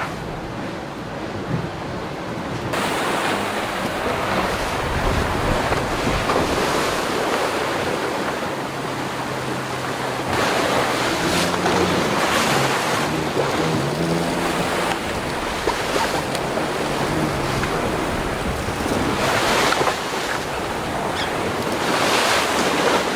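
Wind and sea rushing around a racing sailboat under way, with wind buffeting the microphone; the noise grows louder about three seconds in. A faint low hum comes and goes midway.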